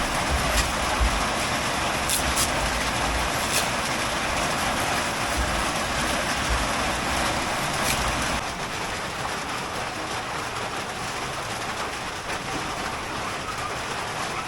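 Heavy rain falling as a steady, loud hiss, with low rumbling in the first half; it eases slightly about eight seconds in.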